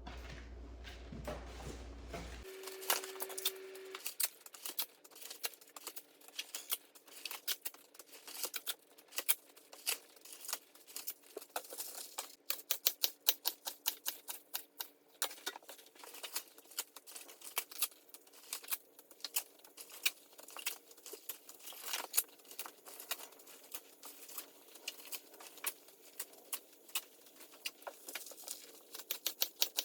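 Collard greens being rinsed and handled in a kitchen sink: irregular pattering and crackling of water drops and wet leaves. A brief low hum sounds about three seconds in.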